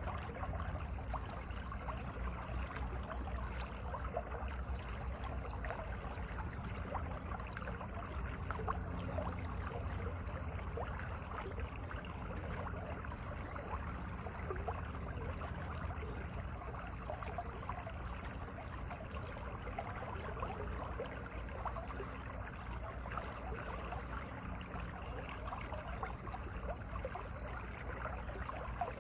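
Mountain valley stream running: a steady rush of water with a constant patter of small splashes.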